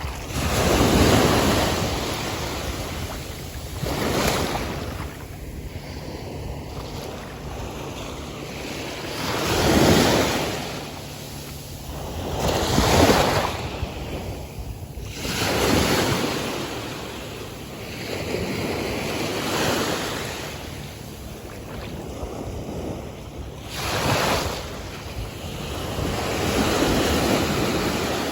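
Atlantic Ocean surf breaking and washing up a beach, one wave after another, each surge swelling and easing every few seconds.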